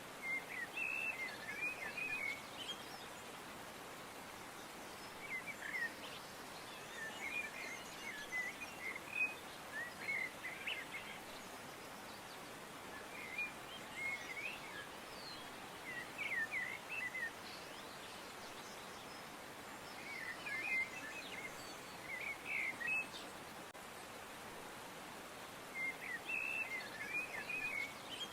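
Songbirds singing: short twittering phrases that recur every few seconds over a steady hiss of background noise.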